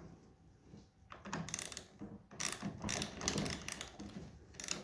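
Ratchet wrench clicking in quick runs as it tightens a 7/16 screw on a steering-wheel knob clamp, after a quiet first second: two bursts of rapid clicking with a short break between them.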